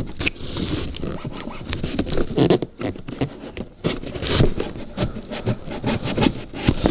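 Hands opening a cardboard shipping box: irregular scraping and rasping of packing tape and cardboard, with many small knocks and clicks.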